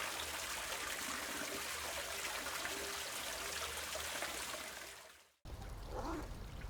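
Steady rush of running water, fading out about five seconds in; after a brief silence, a different outdoor ambience with a low rumble begins.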